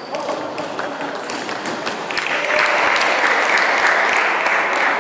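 Applause from spectators, a dense patter of claps that swells about two seconds in, with a few sharp ping-pong ball clicks.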